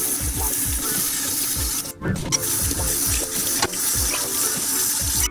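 Water running from a kitchen faucet and splashing over hands and a small plastic aquarium filter part being rinsed in a steel sink, with a brief break about two seconds in. Background music with a steady low beat plays under the water.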